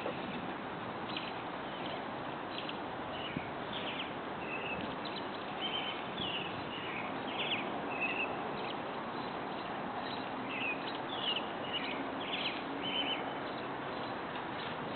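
Birds chirping, many short calls scattered throughout, over a steady outdoor background hiss.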